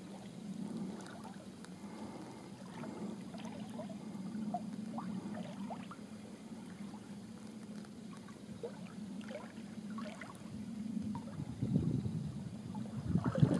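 Water lapping and gurgling against the hull of a sailing canoe under way, with small splashes and drips throughout. It grows louder and gustier near the end.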